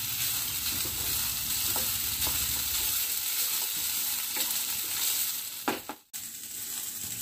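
Soaked samak rice (barnyard millet) sizzling as it is dry-roasted in ghee in a nonstick pan, with a spatula scraping and stirring through it. The sound cuts out for a moment about six seconds in.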